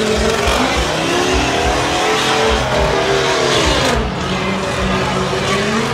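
Burnout vehicle's engine revving hard, its pitch swinging up and down repeatedly, over the continuous hiss and screech of spinning rear tyres.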